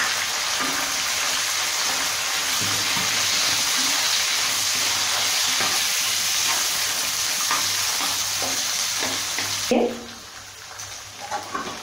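Chopped capsicum, tomato, green beans and peas sizzling in hot oil in a wok while a wooden spatula stirs them; a steady hiss that drops off suddenly about ten seconds in, leaving a fainter sizzle.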